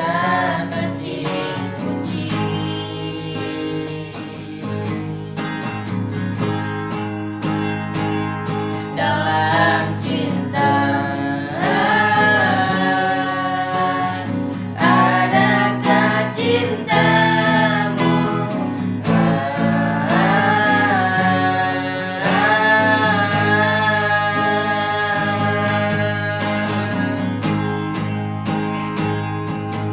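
A voice singing a song over strummed acoustic guitar, in sung phrases with short breaks between them.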